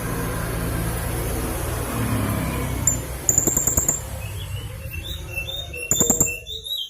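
Blue-crowned hanging parrot calling: two bursts of rapid, shrill, high-pitched notes and a few short whistled notes near the end, over a steady low background rumble.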